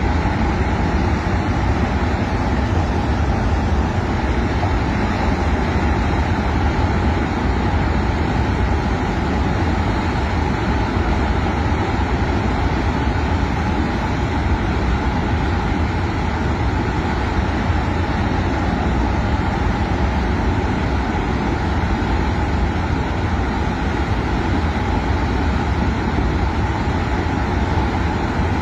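Flash-flood torrent of muddy water and debris rushing down a mountain stream channel: a loud, unbroken rushing noise with a strong low rumble.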